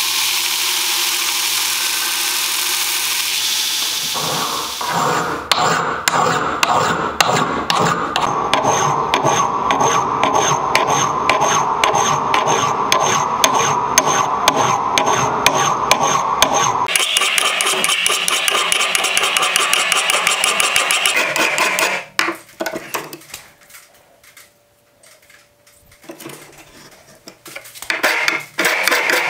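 A grinder running steadily against the steel axe head, then hand files rasping on the axe steel in quick, even back-and-forth strokes. The filing turns lighter and brighter partway through, drops to a few scattered strokes, then picks up again near the end.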